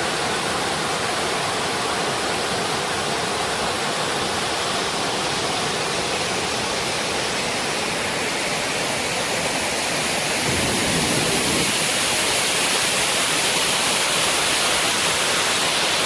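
A waterfall's water rushing steadily, growing a little louder about ten seconds in.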